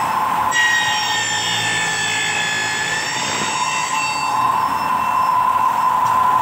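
Horizontal milling machine running with a steady motor whine. About half a second in, the cutter is fed into the metal workpiece and a high-pitched cutting whine joins it for about four seconds, then fades, leaving the motor running.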